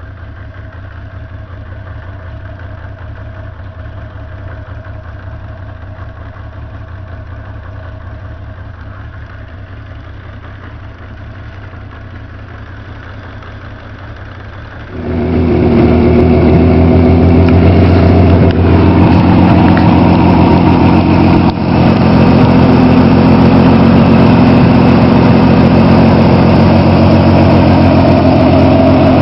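Kawasaki ZN1300 Voyager motorcycle's six-cylinder engine idling steadily through its exhaust. About halfway through the idle suddenly becomes much louder and stays steady, with one brief dip.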